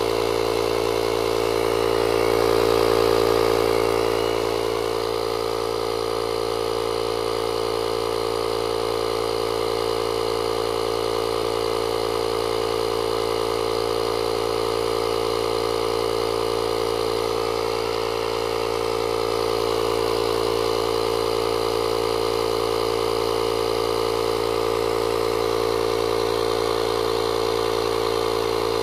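JFEGWO 6000A jump starter's built-in 12-volt air compressor running steadily as it inflates a tire, with a slight swell in level a few seconds in.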